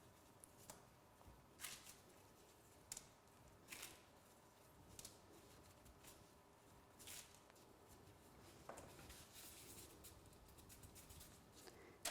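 Near silence, with faint scattered clicks and light rustles about once a second or two.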